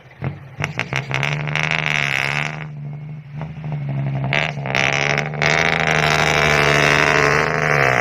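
Radio-controlled toy truck driving in two spurts, its motor and gears whirring amid rattling and crackling: about a second in until two and a half seconds, then again from about four seconds on, louder. A steady low hum runs underneath.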